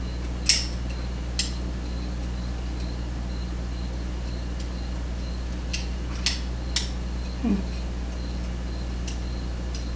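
Small metal clicks and clinks of tweezers and padlock parts being handled, about six scattered sharp ticks, over a steady low hum.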